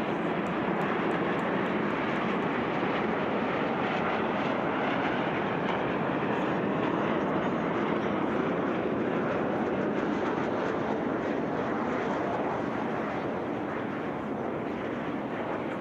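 Steady rushing roar of jet engines from Aermacchi MB-339 jets of the Frecce Tricolori display team flying overhead, easing slightly near the end.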